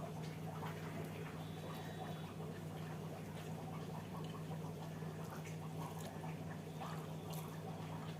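A person eating a wet meal of dal and rice: soft, scattered wet chewing and lip-smacking clicks, over a steady low hum.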